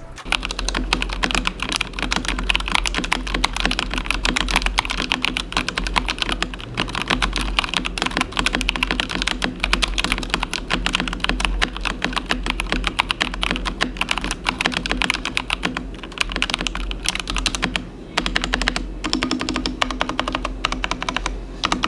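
Ajazz AK870 MC mechanical keyboard with brown tactile switches being typed on fast in a sound test: a dense, continuous run of key clacks over a steady low hum.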